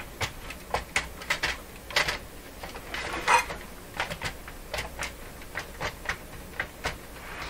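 Handling noise from a partly disassembled Sony micro hi-fi unit being turned on the workbench: a string of irregular clicks and knocks of metal and plastic parts, the loudest about three seconds in.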